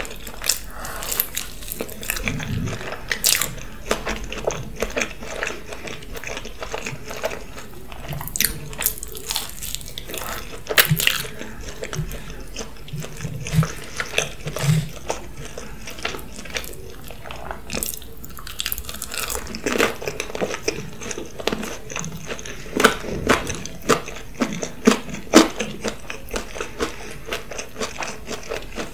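Close-up eating sounds: biting and chewing a slice of pizza topped with waffle fries, melted cheese and ham, with irregular sharp crunches throughout.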